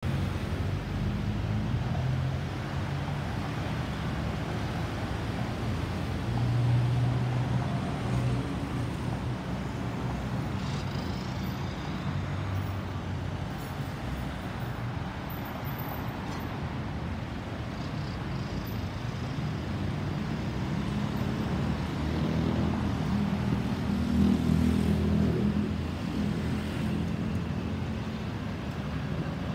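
Steady road-traffic rumble from the street, swelling as vehicles pass about 7 seconds in and again around 23 to 25 seconds in.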